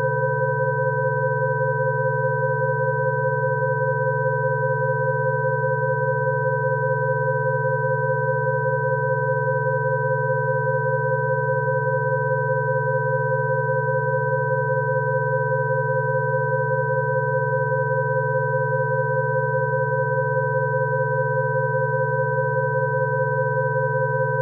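Electronically generated Rife frequency tones for coughing: several steady pure tones held together at fixed pitches, a low hum with higher tones above it, without change.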